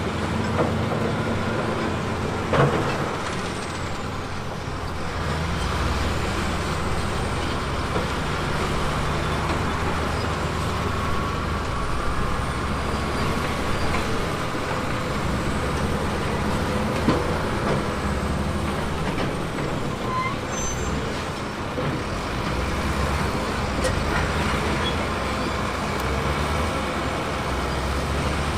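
Diesel engine of heavy earthmoving machinery running steadily, its engine note shifting up and down. A sharp knock comes a few seconds in and another just past halfway.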